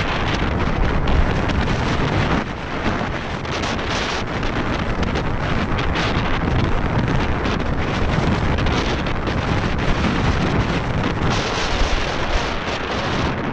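Wind buffeting the action camera's microphone as a 2017 Nukeproof Mega enduro mountain bike descends a rough dirt singletrack at speed, mixed with steady rolling tyre and trail noise.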